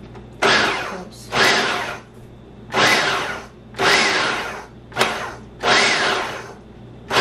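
Food processor pulsed six or seven times in quick succession, its blade chopping cooked chicken into shreds. Each pulse starts suddenly and fades out within about a second, about one a second.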